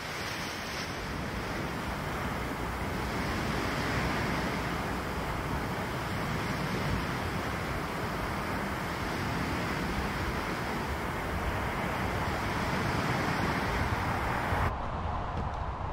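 Wind and small lake waves washing onto a sandy beach: a steady noise that swells and eases slowly. Near the end the hiss drops away abruptly.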